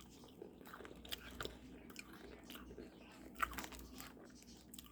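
A person chewing freeze-dried Skittles-style candy: quiet, brittle crunches at irregular moments, with a louder crunch about three and a half seconds in.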